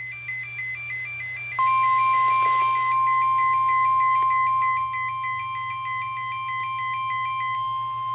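Emergency Alert System alert tones: rapid beeping at two high pitches, about four beeps a second. A steady single-pitch tone near 1 kHz, like the NOAA Weather Radio 1050 Hz warning alarm, joins about a second and a half in and holds on after the beeping stops near the end.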